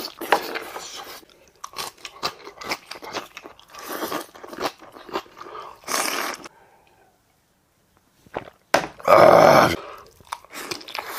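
A man chewing and crunching a mouthful of food, close to the microphone, with wet clicky crunches. It goes quiet for a moment, then a single loud burst just under a second long comes near the end.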